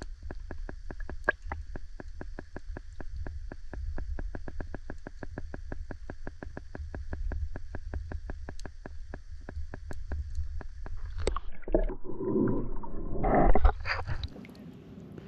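Fishing reel being wound in, clicking fast and evenly, about four or five clicks a second, for around eleven seconds. Then a few seconds of knocks and splashy squirting as a caught squid is brought aboard, loudest shortly before the end.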